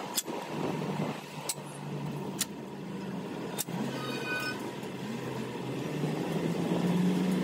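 An engine running steadily, a little louder towards the end, with four sharp metallic clicks or knocks in the first few seconds and a brief ringing tick about four seconds in.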